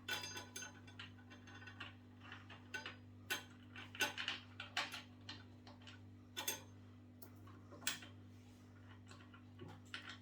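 Irregular light clicks and taps of metal parts being handled while the scooter's wheel, washers and axle bolts are fitted back on, over a steady low hum.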